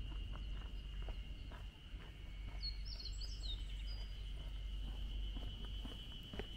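Quiet outdoor ambience: a steady low rumble with a continuous thin high tone over it, and a small bird chirping a few times about two and a half seconds in.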